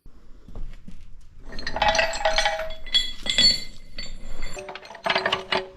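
Steel chains clinking and rattling as they are handled, in several bursts with a metallic ring.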